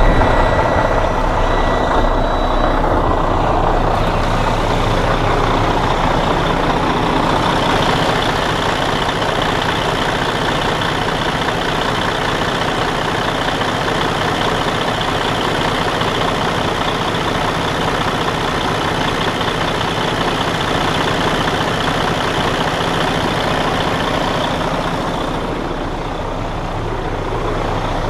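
Detroit DD13 inline-six diesel in a Freightliner Cascadia idling steadily just after a start. It is running after the repair: its damaged intake and exhaust camshafts, which had put it out of timing and made a loud internal noise, have been replaced with a complete camshaft housing.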